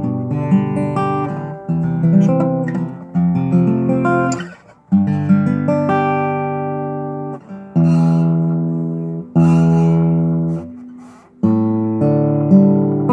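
Dixon model 756 acoustic guitar being played. Quick chord and note changes come first, then single chords struck and left to ring and fade, played to show the buzz on its E string.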